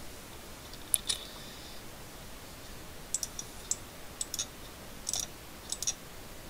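Computer mouse buttons clicking. There is a sharp pair of clicks about a second in, then a scatter of quicker clicks, several in close press-and-release pairs, from about three seconds on.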